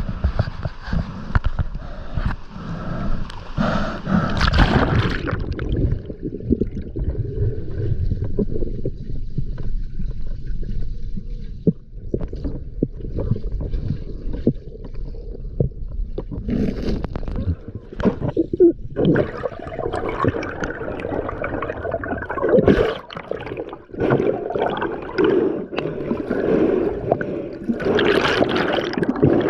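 Water gurgling and sloshing close to the microphone, with scattered knocks and scrapes; it grows busier and brighter in the last ten seconds.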